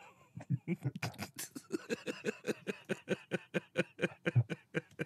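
A person laughing in a long run of quick, rhythmic bursts, about five a second.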